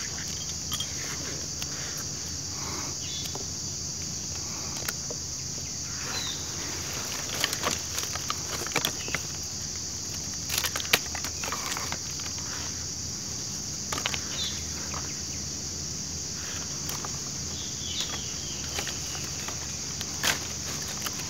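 Insects keep up a constant high-pitched buzz. Over it come scattered sharp snaps and rustles as dry twigs are handled and laid over a small kindling fire.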